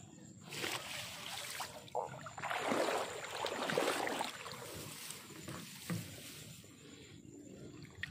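Water sloshing and dripping and grass rustling as a mesh fish trap is pulled up and handled at the water's edge, with two louder swishing spells, about a second in and around the middle.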